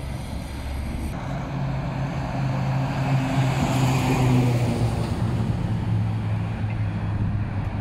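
A heavy diesel dump truck passing close by, its engine drone and tyre noise building to loudest about four seconds in. The engine note then drops slightly as the truck goes past, over steady traffic noise.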